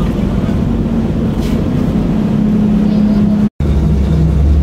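GMC army truck's engine running steadily while driving, heard from inside the truck. The sound drops out for a split second about three and a half seconds in, where the recording is cut, and then resumes with a slightly lower engine note.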